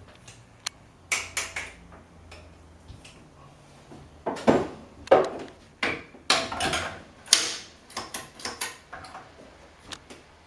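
Clicks, knocks and short scraping rattles of espresso portafilters being handled and filled with ground coffee, loudest in a cluster of bursts around the middle.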